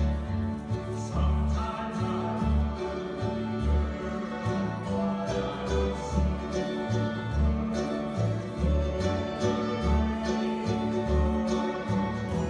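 Acoustic bluegrass band playing a slow gospel hymn, with strummed acoustic guitars over an upright bass plucking a steady walking line, and voices singing.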